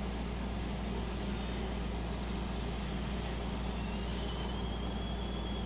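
Steady low rumble of background noise, with a faint high whistle rising slowly near the end.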